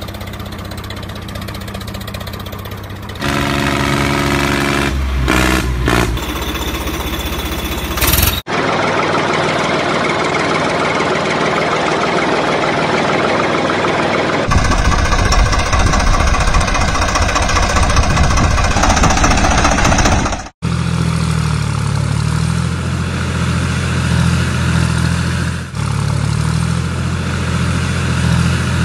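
Tractor engine sounds cut together in several pieces, running and revving, with a noisier stretch in the middle. The sound breaks off abruptly and changes about eight seconds in and again about twenty seconds in.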